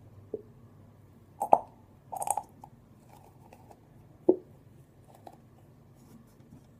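A few sharp clicks and knocks of plastic craft bottles and lids being handled. The loudest come about a second and a half in and again just past four seconds, with a quick cluster of clicks in between.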